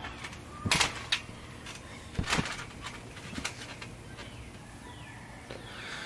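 A few thumps of someone jumping and landing on a trampoline mat, about a second in and again around two seconds in, then faint bird chirps near the end.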